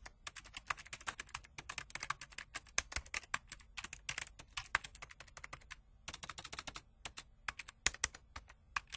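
Typing sound effect: a fast, uneven run of keystroke clicks, with a short break about six seconds in.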